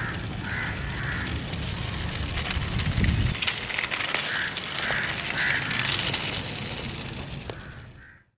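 Outdoor ambience: wind rumble on the microphone that cuts off about three seconds in, scattered crackling ticks, and crows cawing repeatedly; it all fades out near the end.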